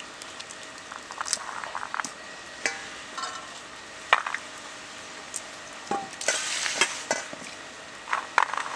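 Shelled green peas stirred and sifted by hand in a stainless steel bowl: a soft rustle with scattered light clicks of peas against the metal, and a louder rustling stretch about six seconds in.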